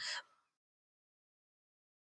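The last fragment of a spoken word fading out in the first moment, then complete silence with the sound track cut off.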